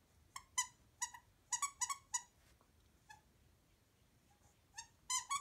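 Squeaker inside a plush dog toy squeaking as a cattle dog chews it: a quick run of short high squeaks over the first two seconds, a single one about three seconds in, and another cluster near the end.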